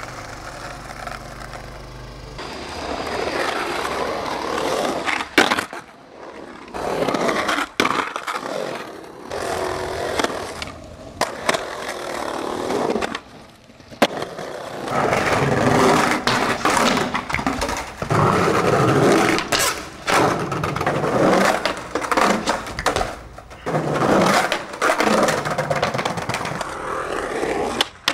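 Skateboard wheels rolling over concrete bowls and ledges, with scraping on the edges and sharp snaps, clacks and landing slaps of tricks, in a run of short clips that start and stop abruptly.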